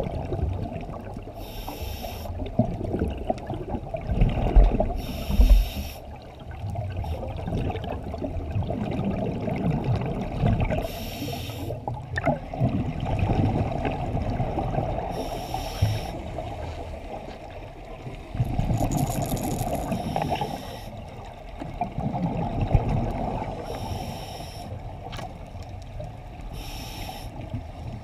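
A scuba diver breathing through a regulator, heard underwater: a hiss of drawn breath recurs about every four to five seconds, between stretches of low bubbling rumble from exhaled air.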